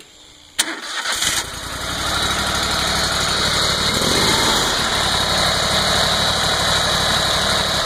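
Riding lawn mower's 22-horsepower Kohler engine started by its electric starter, powered from a supercapacitor module instead of a battery: the starter cranks briefly about half a second in, the engine catches within a second, and it settles into steady running.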